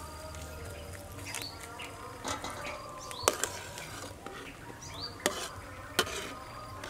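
A metal ladle stirs soup in a metal pot, clinking sharply against it: two clinks close together about three seconds in, then one each near five and six seconds. Birds chirp briefly in the background.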